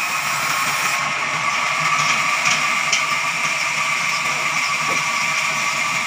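Large band saw running steadily as a jackfruit log is fed through its blade: a constant mechanical hum, with a few faint ticks about two to three seconds in.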